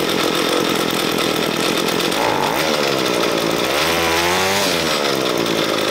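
Ryobi ES30 string trimmer's two-stroke engine running steadily, its speed rising and falling a little in the middle. It is slow to respond to throttle, which the owner takes as the main fuel mixture being set too lean.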